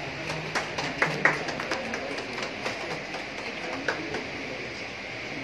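Scattered sharp clicks and taps over steady room noise, the loudest couple of them about a second in.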